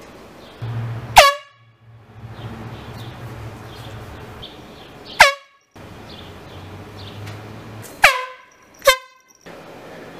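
Four short, loud horn blasts, about a second in, near the middle, and twice close together near the end. Each drops sharply in pitch at its start, then holds one note. A low steady hum runs between the blasts.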